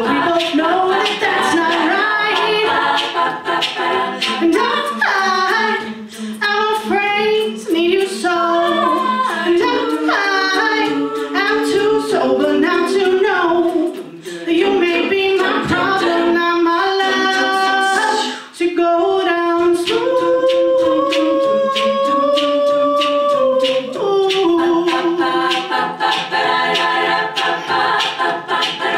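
All-female a cappella group singing: a soloist's lead voice over sung backing parts from the rest of the group, with one long held note about two-thirds of the way through.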